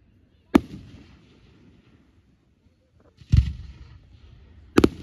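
Fireworks going off: three sharp bangs, about half a second in, around three seconds in, and a close double crack near the end, each followed by a rumbling echo.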